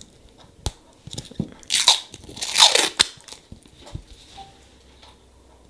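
Protective plastic film being peeled off a metal nail stamping plate, crinkling and crackling. A few sharp clicks, then two loud crackly bursts, one about two seconds in and a longer one just before three seconds.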